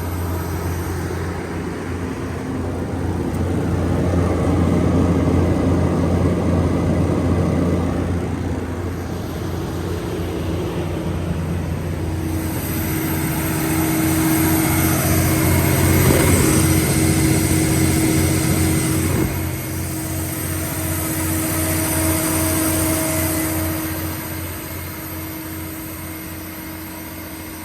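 Cummins QSB7-G5 inline-six diesel engine of a 150 kW generator set running at steady speed: a constant low drone with a steady hum above it. Its loudness swells and fades several times and falls away near the end.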